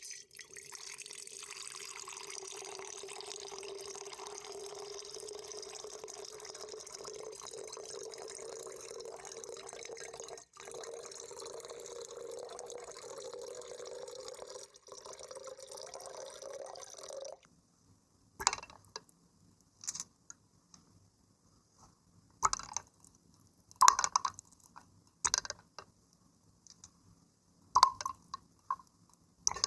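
Water pouring steadily, its pitch creeping slightly upward, then stopping suddenly after about seventeen seconds. A string of separate drips and small splashes follows, about one every one to two seconds.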